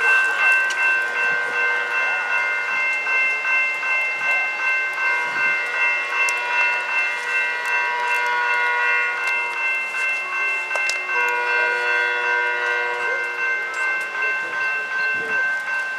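Railroad grade-crossing warning bell ringing steadily, about two strokes a second.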